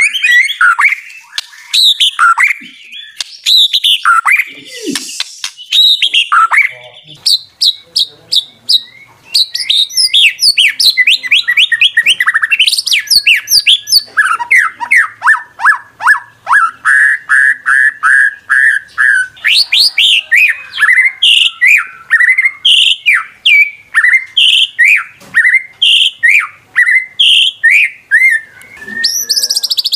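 White-rumped shama (murai batu) singing loudly. It gives a varied run of whistled phrases, then from about a third of the way in long series of rapidly repeated notes and trills. This is the song used as a lure to provoke another murai batu into singing.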